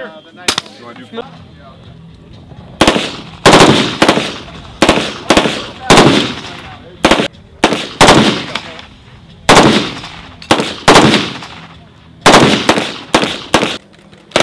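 Gunfire at a shooting range. One shot comes about half a second in, then after a short lull a run of sharp shots starts about three seconds in and keeps going, some single and some in quick clusters, each with a short echo.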